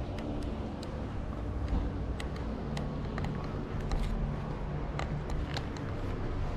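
Steady low rumble of wind on the microphone, with light ticks every half second or so from footsteps on a paved walkway.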